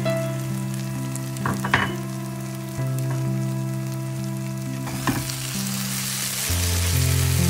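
Spiced rice filling sizzling in a pan while a spoon stirs it, with a couple of sharp clicks of the spoon against the pan. The sizzle and stirring grow louder in the second half. Background music of held chords plays throughout.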